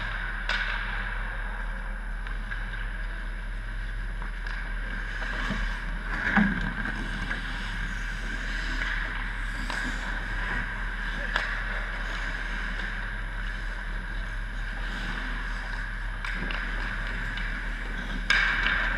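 Ice hockey rink ambience: a steady hum and hiss with hockey skates scraping on the ice and a few sharp clacks of sticks and pucks, the loudest about six seconds in. Near the end a sudden louder burst of skate scraping comes as skaters close on the net.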